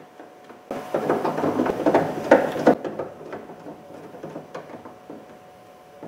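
Ratchet with a 10 mm socket clicking rapidly for about two seconds, running in a bolt that holds the exterior door handle inside the door shell, then a few scattered light clicks and knocks.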